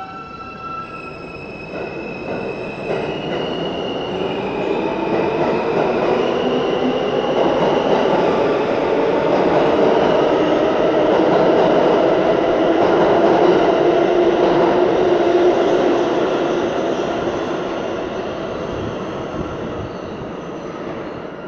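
New York City Subway train pulling out of the station: the propulsion whine steps up in pitch over the first several seconds as it accelerates. The rumble and clatter of the cars passing close by then build, loudest about two-thirds of the way through, and fade as the train leaves.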